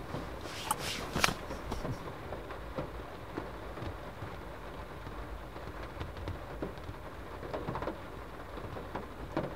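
Rain falling on a car's roof and windscreen, heard from inside the cabin as a steady patter of small ticks, with a couple of sharper ticks about a second in.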